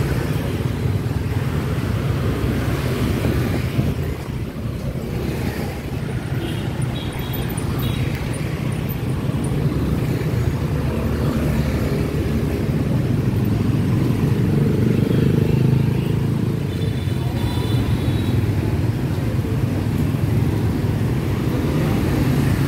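Steady hum of motor-scooter traffic riding past close by, many small engines running at once.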